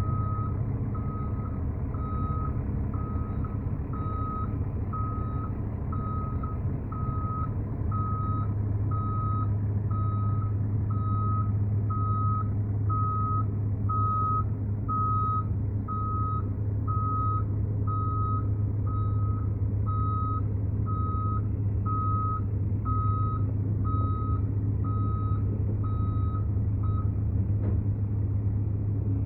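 Heavy vehicle's reversing alarm beeping steadily about once a second over a diesel engine running; the beeping stops near the end while the engine keeps running.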